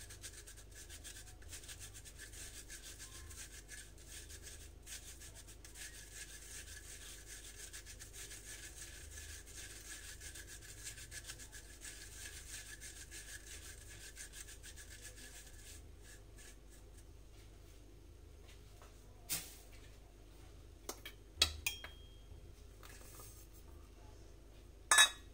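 Fingers rubbing powdered sugar through a fine wire-mesh strainer to break up the lumps: a faint, steady scratchy rustle that stops about 16 seconds in. A few sharp clinks follow in the last third, the loudest near the end.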